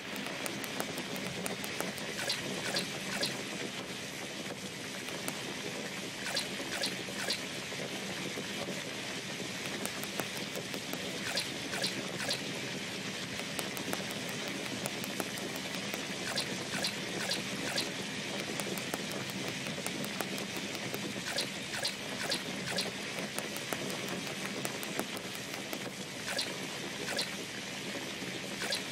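Sugar syrup boiling in a pan: a steady fizzing hiss with frequent small pops and crackles as skewered fruit is swirled through it to coat it for tanghulu.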